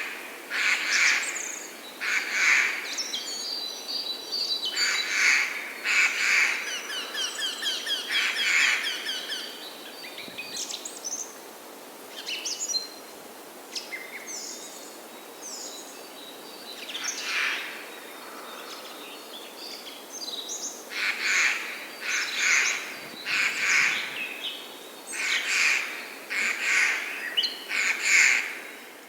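Birdsong ambience: several birds singing short repeated phrases, some with fast trills, over a steady outdoor hiss. The singing thins out midway and picks up again near the end.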